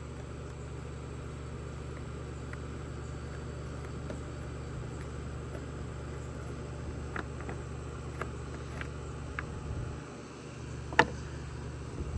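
A steady low hum under a few light clicks and one sharper knock about eleven seconds in: a chainsaw being handled while not running.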